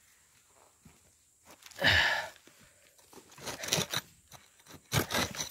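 Dry fallen leaves, twigs and pine needles on the forest floor rustling and crunching as they are disturbed: one loud rustle about two seconds in, then scattered crackles.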